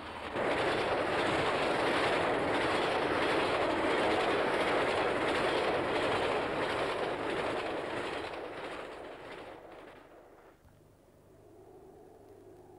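Freight train of box vans running through a station at speed. Its loud, steady rush of wheel and wagon noise starts abruptly, holds for about nine seconds, then dies away over the last seconds.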